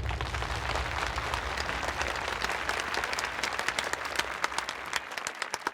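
Audience applauding: many hands clapping together, thinning out to scattered claps near the end, while low music fades out underneath.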